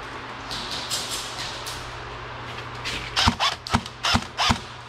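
Airsoft gun firing four quick shots about three seconds in, each a sharp crack with a low knock, roughly two to three a second, over a steady low hum.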